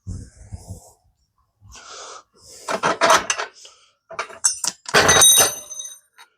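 Heavy breathing and the clatter of metal parts being handled, with a sharp metallic clank about five seconds in that rings on briefly.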